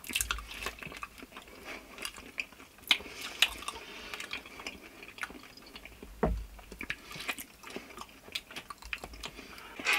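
People chewing mouthfuls of banana fast, with irregular wet mouth clicks and smacks, and one louder falling sound about six seconds in.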